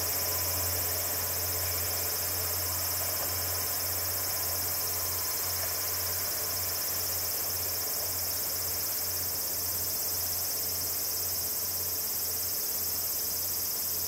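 Steady high-pitched chorus of insects in the woods, with the low drone of a departing KiHa 47 diesel railcar's engine that starts to break up and fade from about five seconds in as the train pulls away.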